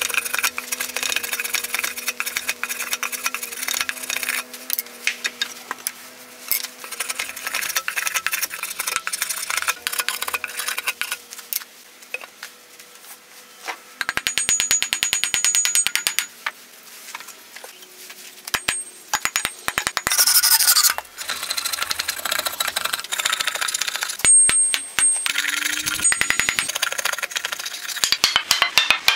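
A hand rasp scraping across an ash axe handle in quick back-and-forth strokes, shaping the wood. Sharper knocks come in the later part.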